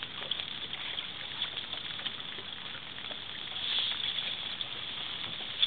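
River water washing against a boat's hull: a steady hiss with a few faint small clicks, a little louder about four seconds in.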